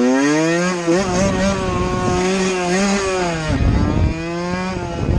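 Supermoto motorcycle engine revving hard under acceleration. Its pitch climbs over the first second and holds high, dips briefly about three and a half seconds in, then picks up again, and it cuts off abruptly at the end.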